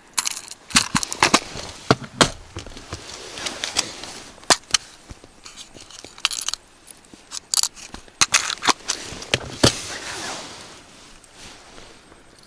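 Fishing tackle being handled while a small spinner lure is picked out and changed: irregular sharp clicks and rustling handling noise.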